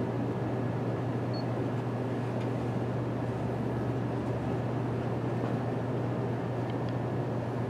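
Steady low hum with a faint, even hiss, unchanging throughout.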